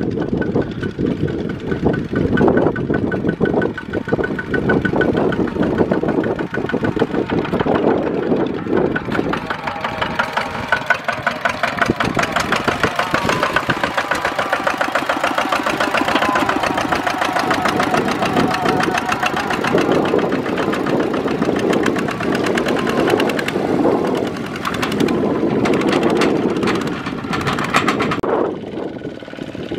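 Kubota two-wheel walking tractor's single-cylinder diesel engine chugging steadily with an even firing beat, working under load as it pulls a trailer through deep mud.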